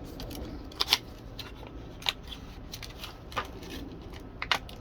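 Scattered sharp plastic clicks from handling a 7440 wedge-base turn-signal bulb and its socket as the bulb is pulled out, with a double click near the end.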